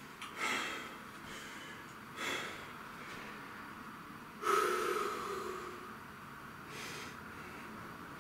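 A man breathing hard as he recovers between sets of dumbbell curls: four heavy exhales about two seconds apart, the loudest about halfway through, with a short sigh in it.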